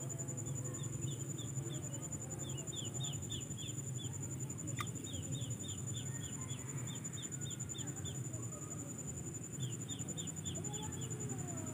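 A bird calling in runs of short, quick falling notes, about three a second, with pauses between the runs, over a steady high-pitched insect drone and a low rumble. One sharp click about five seconds in.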